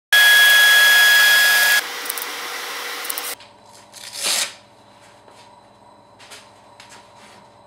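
DeWalt random orbital sander running against an end-grain cutting board: a loud, steady whir with a high whine for about two seconds, then quieter, stopping abruptly about three and a half seconds in. Afterwards come faint handling noises: a short whoosh about four seconds in and a few light knocks.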